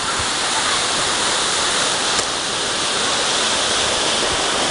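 Steady, loud rushing of water, with one faint click about two seconds in.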